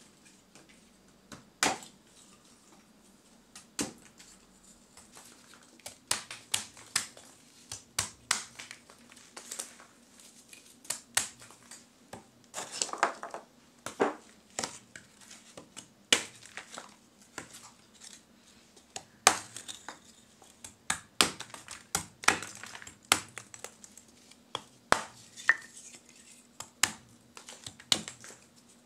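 Lump charcoal being chopped into pieces with a broad-bladed knife on a wooden block: a run of sharp, irregular chops and crunches, roughly one to two a second, with a denser stretch of crunching about halfway through.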